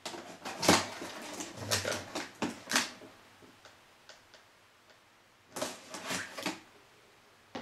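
Knife cutting through the tape and cardboard of a wine gift box: a run of short scraping cuts over the first three seconds, then another cluster of cuts a little past halfway.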